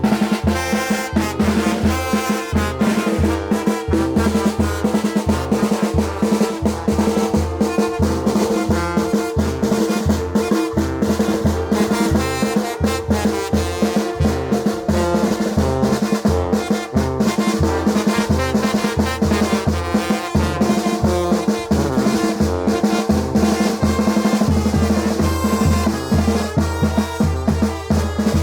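Mexican brass band (banda de viento) playing a chilena: brass carrying the tune over snare and bass drum keeping a steady, driving beat.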